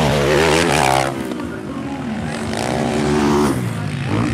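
Motocross dirt bike engines revving on the track, their pitch rising and falling as the riders throttle up and ease off. The sound drops about a second in and builds again through the middle.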